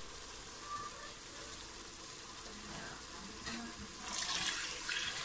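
Water splashing as it is poured from a glass bowl into a metal pot of red lentils, getting louder from about three and a half seconds in.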